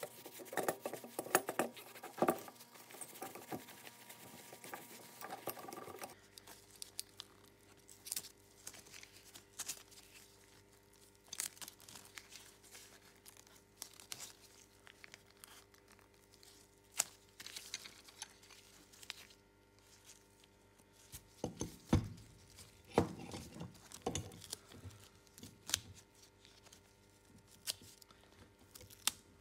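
A cloth rubbing over a steel C-clamp for the first six seconds or so. Then painter's tape is pulled, torn and pressed around the clamp, with soft crinkling and scattered clicks and taps over a faint steady hum.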